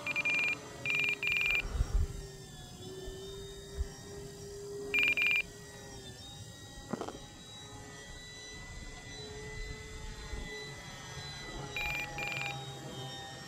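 Short bursts of high electronic beeping: three near the start, one about five seconds in and two near the end, from an RC radio transmitter's flight-timer alert counting down the flight time. Under it runs the faint steady hum of the RC Cessna 182's electric motor and propeller overhead.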